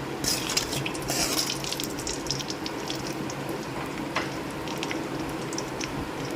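Mustard seeds spluttering in hot oil in a pan: a dense run of sharp pops in the first second and a half, then scattered pops over a steady sizzle.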